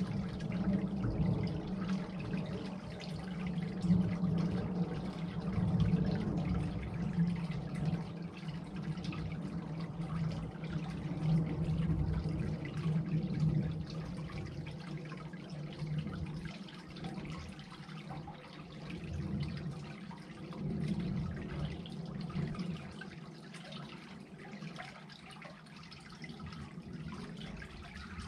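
Creek water draining through an unclogged culvert, a continuous trickling pour that swells and ebbs, a little quieter in the second half.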